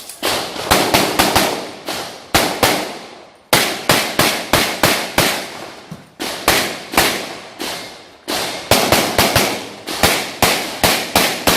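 Gunfire: rapid strings of shots, several in quick succession in each string, each shot followed by an echoing tail.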